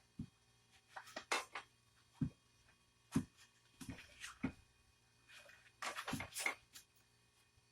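Irregular light clicks, taps and small clatters of hand tools and the plastic and metal parts of a cordless brushless impact driver being handled during disassembly, with a quick cluster of clicks about six seconds in.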